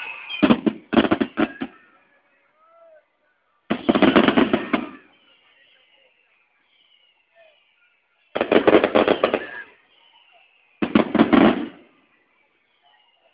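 Fireworks crackling in four bursts of rapid bangs, each about a second long, with faint falling whistles between the bursts.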